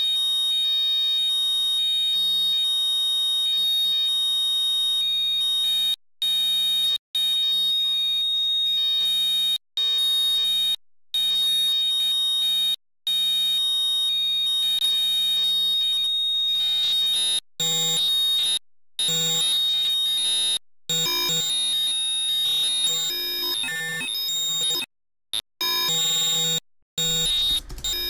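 A sine wave from Logic Pro's ES2 synthesizer run through the Bitcrusher plugin: a steady, high-pitched digital tone buzzing with added harmonics, a sci-fi computer sound effect. As the resolution, downsampling and drive are moved, it cuts out briefly about ten times, and from about halfway its pitch content shifts more often.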